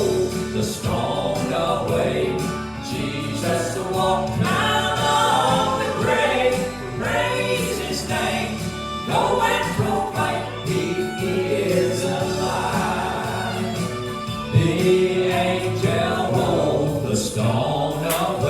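Gospel music: a vocal trio singing in harmony.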